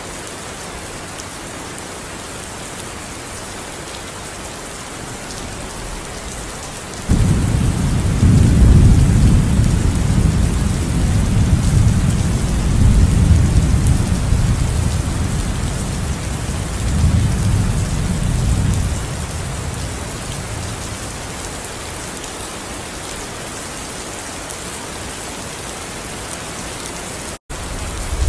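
Steady rain falling with an even hiss. About seven seconds in, thunder breaks in suddenly as a deep rumble that rolls on for about twelve seconds before fading back under the rain. The sound cuts out for an instant near the end.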